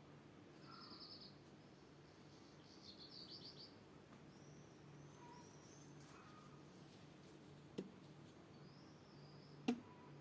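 Faint songbird calls: two short rapid trills, then a few thin high chirps, over a low steady hum. Two sharp clicks land near the end, the second the loudest sound.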